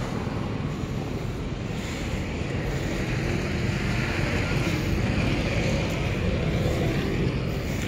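Steady road-vehicle noise with a low rumble, swelling in the middle as a vehicle goes by and easing off near the end.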